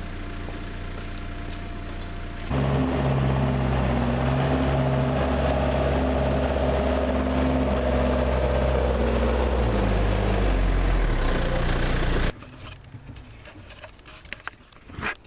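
All-terrain forklift engine running at idle, then revving up about two and a half seconds in and holding at higher revs, easing down in pitch near the end before the sound cuts off abruptly.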